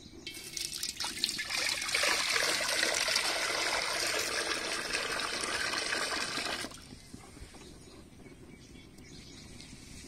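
Water poured in a heavy stream from a plastic pot into an empty black iron kadai, splashing and building up over the first couple of seconds; the pour stops abruptly about two-thirds of the way through.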